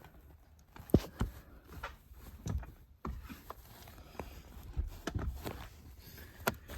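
Scattered knocks and clicks of a car's rear seat and trim being handled and pulled loose by hand, with sharper knocks about a second in and near the end.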